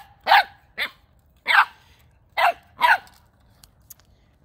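Nine-week-old boxer puppy barking: about five short barks in quick succession over the first three seconds, then quiet apart from a few faint ticks. These are full 'big boy' barks rather than the puppy's usual yelps.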